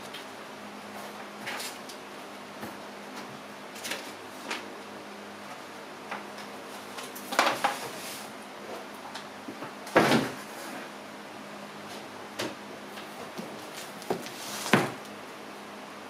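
A large cardboard box and paper being handled: scattered knocks, thuds and rustles, the loudest about ten seconds in, over a faint steady hum.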